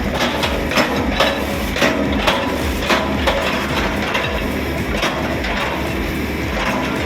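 Heavy machine breaking up wood: sharp cracks and knocks, two or three a second, over a steady engine hum. The knocks thin out about halfway through.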